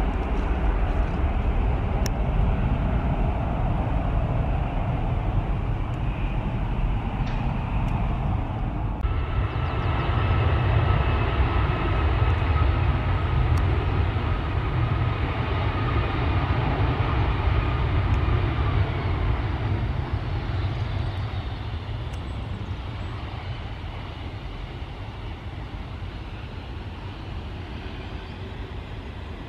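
Icelandair Boeing 757-200 jet engines rumbling on its landing rollout, with a high whine over the roar from about a third of the way in. The sound fades steadily over the last ten seconds as the airliner slows on the runway.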